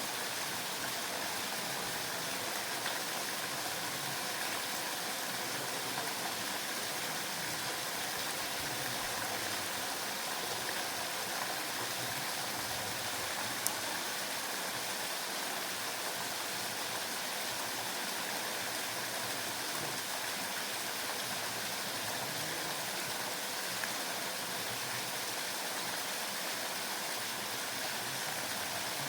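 Waterfall and stream water rushing in a steady, even hiss, with a single small click about halfway through.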